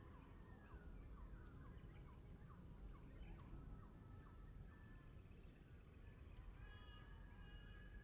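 Faint songbird song: a quick series of down-slurred whistles through the first half, then several level whistled notes near the end, over a low background rumble.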